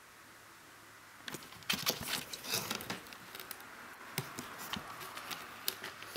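Plastic Super Jewel CD case being opened and handled, with a string of sharp clicks and rustles starting about a second in.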